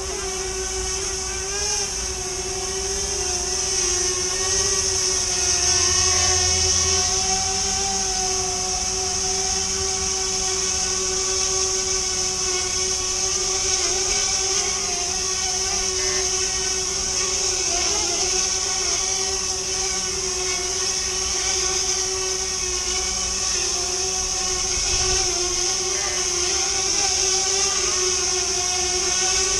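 Brushless electric motors and propellers of a Fimi Manta tiltrotor drone running in hover as it comes down to land: a steady whine at a nearly constant pitch, with wind rumble on the microphone.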